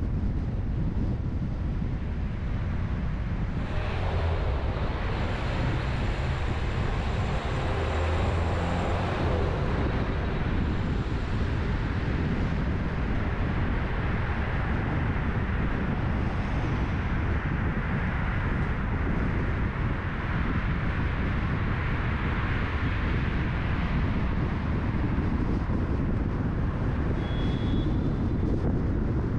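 Car driving on a city road: steady road and tyre noise with a low rumble, and wind on the microphone. A swell of noise passes between about four and ten seconds in, and a brief high squeak comes near the end.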